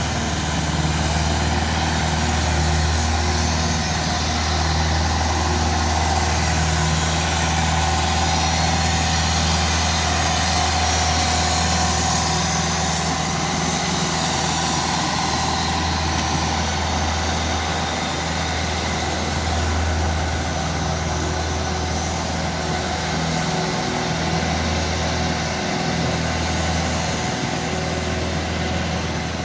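Compact tractor's diesel engine running steadily at low revs while it works an ice-resurfacing attachment across the rink, a low even hum that falls away briefly a few times near the end.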